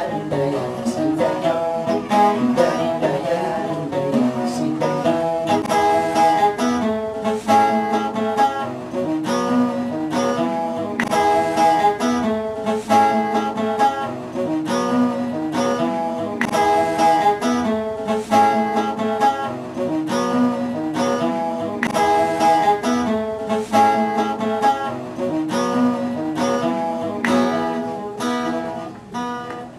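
Instrumental music led by a plucked acoustic guitar, with held notes over a steady beat, fading out near the end.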